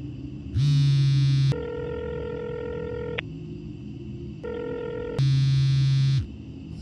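Mobile phone ringing: a buzzing vibration of about a second alternates with a steady electronic ring tone, and the pattern repeats.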